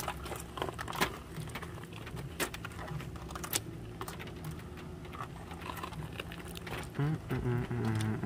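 Scattered light clicks and taps of a plastic Christmas light strand and its reel knocking against the bus windows and body as the lights are strung up, over a steady low hum. A short pitched sound comes in near the end.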